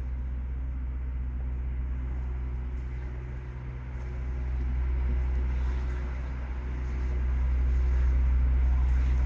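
House standby generator running outside, heard indoors through the walls as a steady low hum that swells a little louder about halfway through and again near the end.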